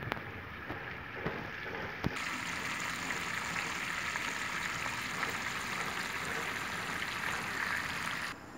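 Garden hose running, with water spraying from its nozzle onto grass and soil in a steady hiss. The hiss starts about two seconds in and cuts off abruptly near the end.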